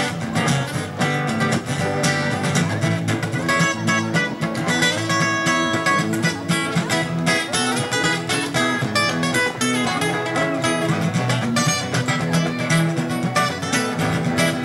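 Live acoustic band playing an instrumental break: acoustic guitars strumming with a picked lead line over them.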